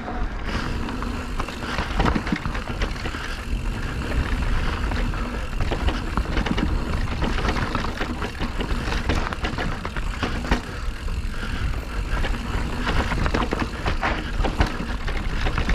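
Mountain bike riding fast down a rough trail: a steady run of knocks and rattles as the bike goes over bumps, with tyre noise and wind rumbling on the microphone.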